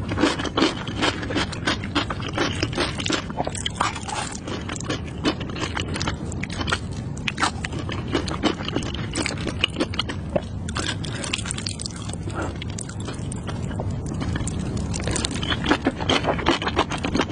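Close-miked chewing of spicy noodles: a steady run of wet smacking and clicking mouth sounds, with noodles slurped in near the end.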